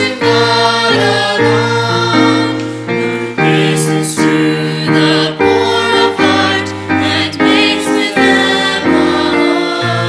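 Small church choir singing a hymn in sustained, changing chords.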